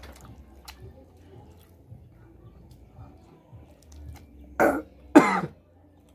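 A man clears his throat twice, two short harsh bursts about half a second apart near the end, over faint small clicks and mouth sounds of eating by hand.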